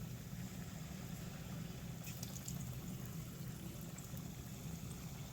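Hot frying oil for akara sizzling faintly over a steady low hum, with a few faint crackles about two seconds in.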